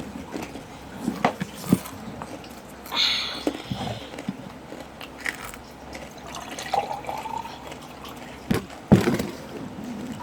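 Close-up eating sounds: chewing chicharon (pork rinds) dipped in vinegar, with wet mouth clicks and smacks, and two sharper clicks near the end.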